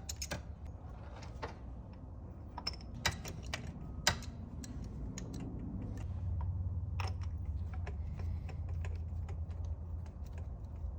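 Irregular light clicks and taps of hand tools as new spark plugs are threaded into a Honda Civic's cylinder head, over a low steady hum that grows louder about halfway through.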